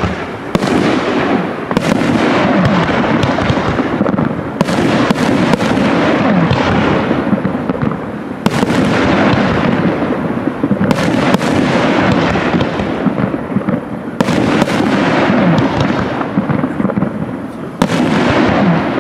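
Aerial firework shells bursting in rapid succession, about a dozen sharp bangs, several in close pairs, each trailing into a long wash of noise so that the sound never drops away between bursts.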